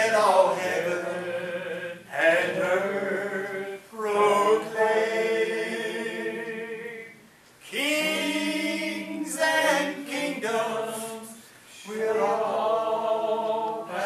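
A man singing unaccompanied into a microphone: long held, pitched phrases with short breaks between them, about five phrases in all.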